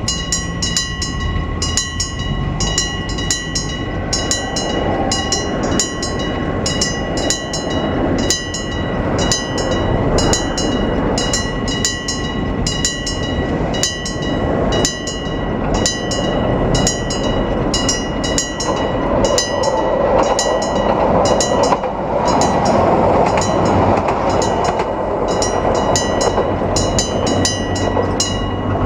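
Nippon Signal EG1003 AC electric bell of a railway level-crossing warning signal ringing continuously with a regular pulsing beat. A Hiroshima Electric Railway train's running noise grows louder under it from about two-thirds of the way through.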